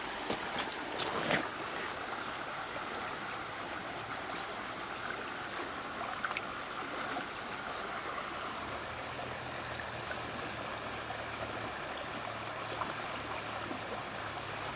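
Creek water running steadily over rocks. There are a few short knocks in the first second or so and again around six seconds in, and a low steady hum joins about two-thirds of the way through.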